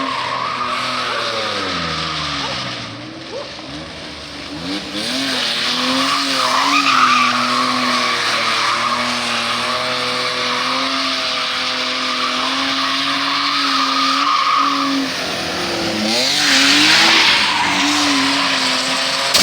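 A BMW engine held at high revs, the note rising and falling, while the tyres spin and squeal in a drift and burnout. Near the end a louder rush of noise swells for a couple of seconds.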